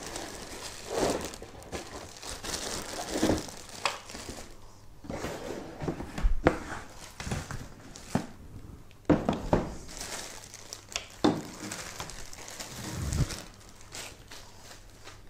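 Packaging rustling and crinkling as a liquid CPU cooler is lifted out of its box and unwrapped, with a few light knocks in between.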